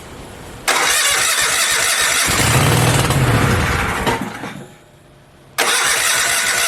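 V-twin generator engine on a mini bike being started for the first time: it cranks, catches about two seconds in and runs briefly, then dies away. It is cranked again near the end.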